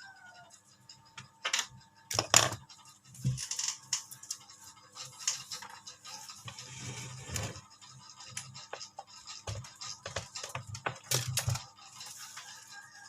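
Packaging and objects being handled: an irregular string of clicks, scratches and rustles, loudest about two seconds in and again near eleven seconds.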